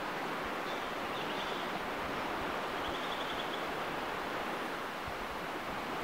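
Steady rushing noise of surf and wind on an open beach, with a faint high chirping twice.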